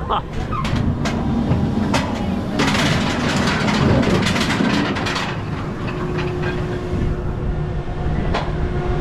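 Riding aboard SheiKra, a B&M dive coaster: the train rumbling and clattering along its track, with rushes of wind on the microphone. About six seconds in, a steady hum joins the rumble.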